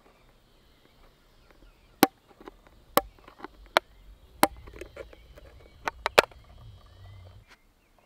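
Sharp metallic clicks and scrapes as a small blade pries the lid off a Sterno chafing-fuel can: a string of irregular clicks, the loudest around the middle and a close pair near the end.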